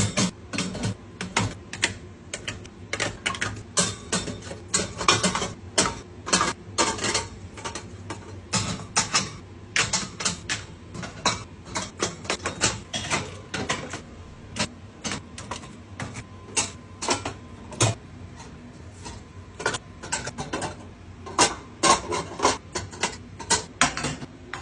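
Irregular clicks, taps and light clatter of containers and packages being handled and set down while a fridge is restocked, several sharp taps a second with brief pauses.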